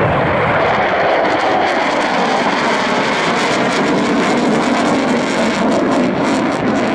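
Loud, steady jet noise from an F-4 Phantom II's two General Electric J79 turbojets as it flies past overhead.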